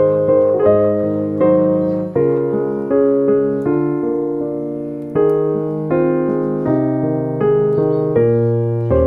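Background piano music: gentle notes and chords struck at an even pace, each dying away before the next.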